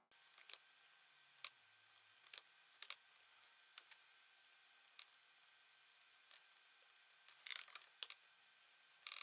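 Near silence with faint, scattered clicks from a computer mouse and keyboard, and a short run of several quick clicks near the end.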